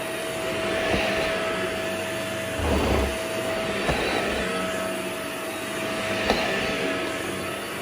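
Vacuum cleaner running with a steady motor whine, its rush of air swelling and fading as it is pushed back and forth, with a few sharp clicks and a low thump about three seconds in.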